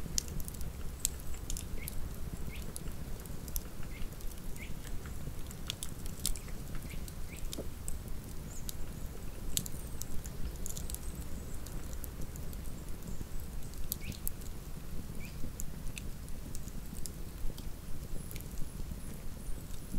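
Wood campfire burning, with irregular sharp crackles and snaps of the burning wood over a steady low rumble.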